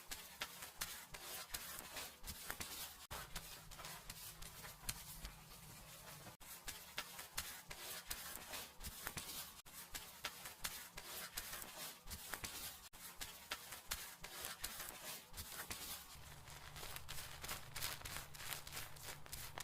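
Fingers scrubbing and rubbing through hair and over the scalp close to the microphone during a seated dry hair wash: a dense crackle of quick small clicks and rustles that never lets up.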